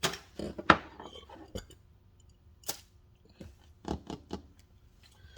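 Hand tools being handled: a string of separate sharp clicks and light clacks, the loudest under a second in.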